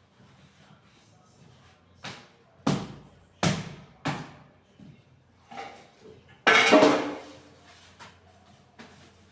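Containers and kitchen items being knocked and set down while a refrigerator is organized: a run of sharp single knocks, then a longer, louder clatter about six and a half seconds in.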